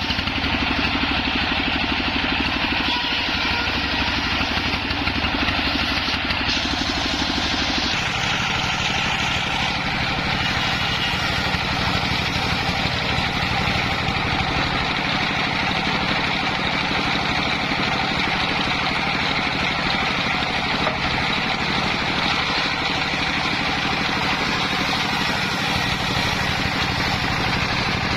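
Homemade circular saw rig running steadily, its engine-driven drive giving a continuous drone. The tone shifts about eight seconds in.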